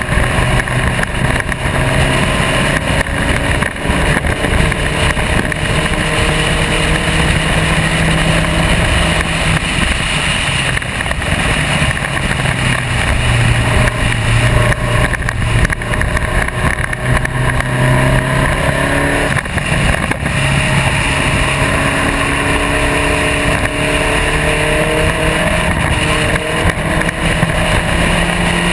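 SCCA Spec Racer Ford's engine running hard on track. Its pitch climbs and falls several times as the car accelerates and backs off.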